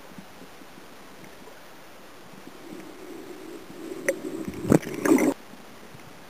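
Muffled underwater water noise at a submerged camera as a Murray cod thrashes right against it. A low swirl of water builds, then a sharp click and two loud knocking, rushing bursts come about four to five seconds in, cutting off suddenly.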